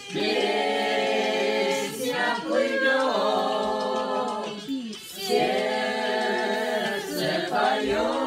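A small group of amateur adult singers singing together a cappella, led by a conductor. The singing is in long held notes, in phrases broken by short gaps about every two and a half seconds.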